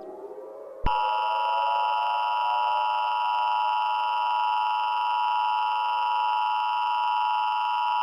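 Emergency Alert System attention signal: the steady two-tone alert beep (853 and 960 Hz sine tones together), starting just under a second in and holding unchanged. Before it, faint rising glides fade out underneath.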